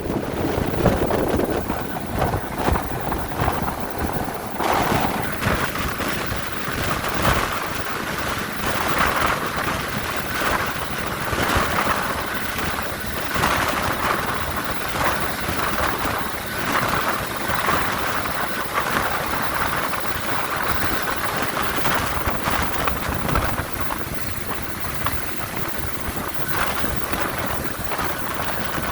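Rescue helicopter running: a steady noisy roar of turbine and rotors with a faint steady whine, rising and falling in gusts.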